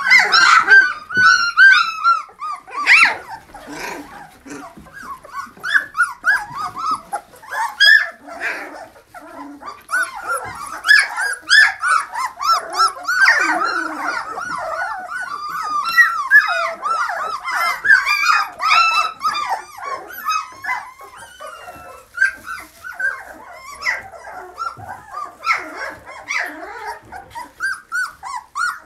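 18-day-old puppies whimpering and yelping in a nearly continuous run of short, high cries that rise and fall in pitch.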